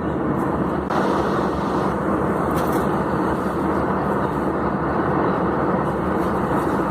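Heavy rain from a passing summer thunderstorm pouring down as a steady, loud rush of noise that gets louder about a second in.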